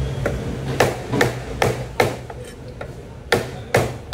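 Heavy fish knife chopping a pomfret against a wooden block: a series of sharp chops, mostly in pairs about half a second apart, with a short pause midway.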